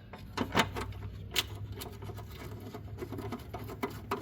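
Ratchet with a 10 mm socket clicking irregularly as the bolts of a plastic engine cover are run in, over a low steady hum.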